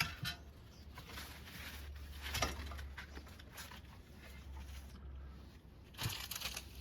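Faint crackling and rustling of fig branches and leaves being cut and pulled away, in scattered short bursts with a longer burst near the end.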